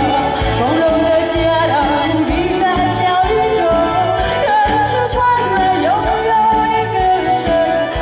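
A woman singing a song live into a microphone, backed by a live band with a steady beat under her wavering melody.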